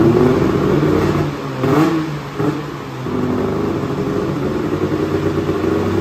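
Arctic Cat M800 snowmobile's 800cc two-stroke engine, just started and running through an aftermarket GGB exhaust can. A couple of quick throttle blips come a little under two seconds in, then it settles into a steady run.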